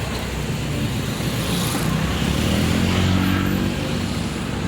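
Car engine and road noise from a vehicle on the road, the engine note rising and then easing off around the middle.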